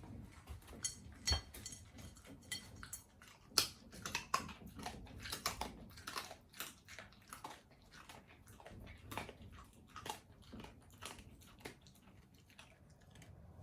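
A pet chewing and crunching food, a quick irregular run of sharp crunchy clicks, with two louder crunches in the first few seconds.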